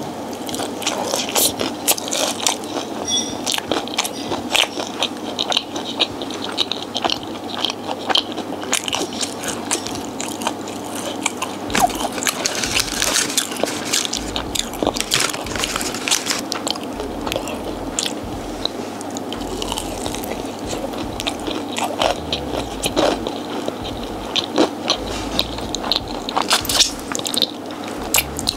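Close-miked mukbang eating: crispy fried food being bitten and chewed, with many irregular small crunches and crackles.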